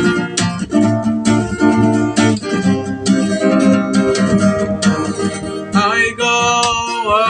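Song intro: music led by strummed guitar chords in a steady rhythm. A bending melody line comes in about six seconds in.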